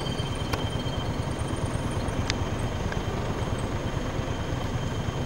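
Steady low rumble of an idling vehicle engine, under a thin, steady, high-pitched insect drone, with two faint clicks.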